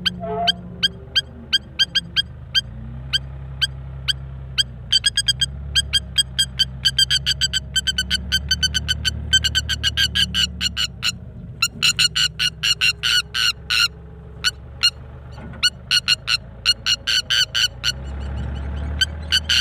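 A bird giving short, sharp, high calls in rapid series, several a second, with a pause of a few seconds near the end; these are the calls of a bird guarding its eggs.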